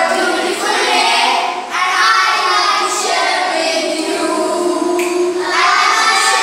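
A group of children singing together in unison, in phrases with a short break about two seconds in.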